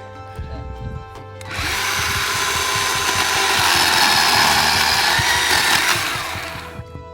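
Chainsaw cutting wood, loud for about five seconds from roughly a second and a half in, over background elevator music.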